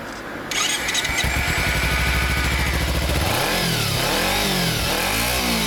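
A 2014 250 cc motorcycle engine starts about a second in and idles for a couple of seconds, then is revved in a series of quick throttle blips, about one a second.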